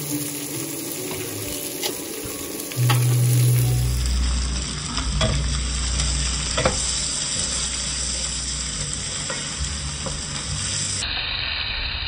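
Beef, sliced onions and turmeric sizzling as they fry in a non-stick pot, stirred with a wooden spatula that knocks and scrapes against the pot a few times. A short low hum sounds about three seconds in.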